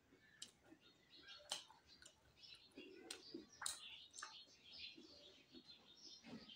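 Quiet close-up chewing: soft mouth smacks and a few sharp clicks, with faint high chirping in the background.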